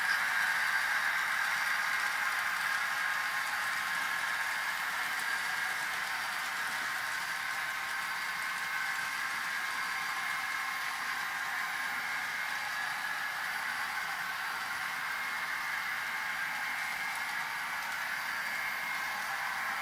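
An N scale model train running on the layout: a steady, thin whirring hiss with no low rumble, easing off slightly over the first few seconds.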